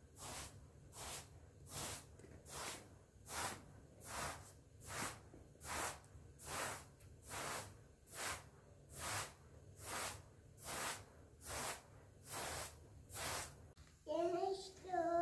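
Short-handled straw hand broom sweeping a pile carpet in steady strokes, about two swishes a second. Near the end the sweeping stops and a young child's voice begins.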